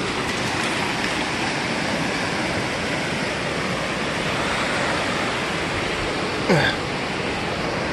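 Ocean surf breaking and washing up the beach, a steady rush of water. About six and a half seconds in, a brief cry falls in pitch.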